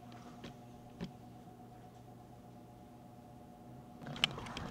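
Faint room tone with a steady low hum and two small clicks. About four seconds in come a louder rustle and sharp clicks as the handheld camera is jerked around.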